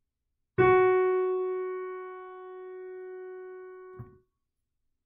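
A single piano note struck once and held for about three and a half seconds as it slowly fades, then cut off with a soft knock as the key is let go: a "long" sound.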